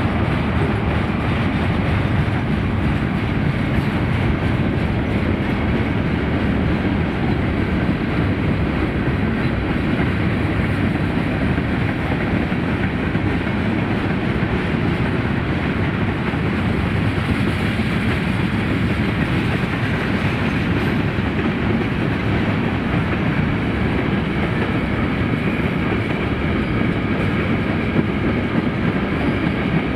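Freight train cars (covered hoppers and tank cars) rolling past, their steel wheels running steadily on the rails.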